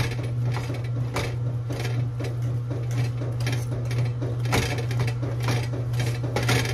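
Washing machine running as a steady low hum, with irregular clicks and scrapes of a utensil mashing and stirring potatoes in a pot.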